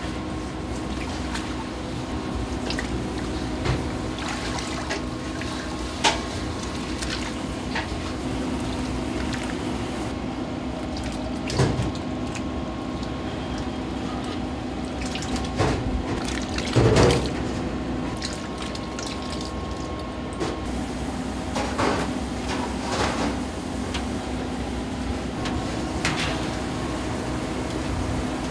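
Kitchen work sounds: liquid pouring and splashing, with a scattering of sharp knocks, over a steady mechanical hum.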